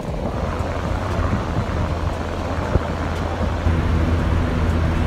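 Electric fan blowing air at close range, its air stream buffeting the microphone in a steady low rumble.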